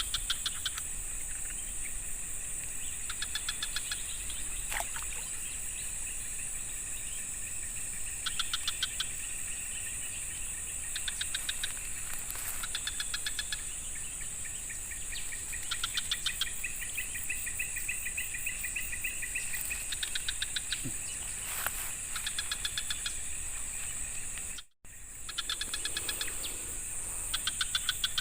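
Insects in the forest: a steady high-pitched drone, with short bursts of rapid pulsed chirping repeating every second or two. The sound drops out for a moment near the end.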